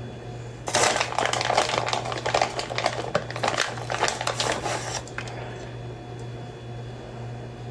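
Plastic bag of shredded cheese crinkling and rustling as it is handled. The rapid crackling starts just under a second in and stops after about four seconds.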